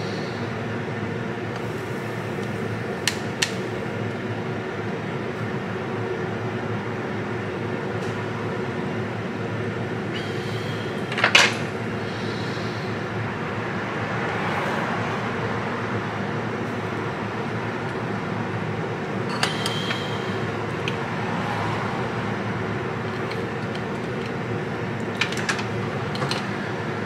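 Steady fan-like blowing hiss, with a few small sharp clicks of metal tools on the circuit board, the loudest about eleven seconds in.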